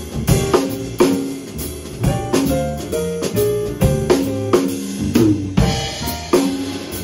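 Jazz trio of upright bass, drum kit and digital piano playing a blues, with the drum kit to the fore: frequent snare, rimshot and bass-drum hits over short pitched notes that step up and down.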